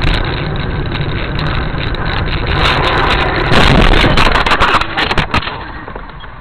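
Car noise through a dashboard camera: a steady engine and road rumble, then a loud burst of crunching knocks from about two and a half to five and a half seconds in, loudest around four seconds, as in a car crash.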